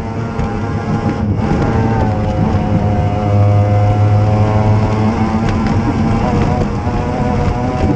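Mercury racing outboard on a Formula Powerboat tunnel hull running at race speed, heard from inside the cockpit: a loud, steady engine note that rises a little in pitch about two seconds in and drops back near the five-second mark.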